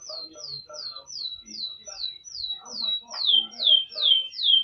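Domestic canary singing: a run of repeated short down-slurred whistled notes, about three a second, growing louder near the end.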